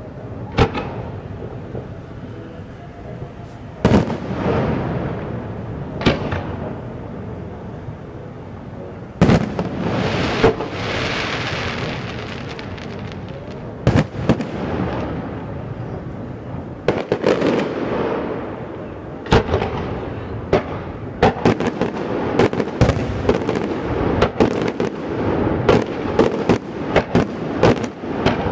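Fireworks going off: single loud bangs a few seconds apart, each with a rumbling tail, giving way to rapid crackling bangs over the last several seconds.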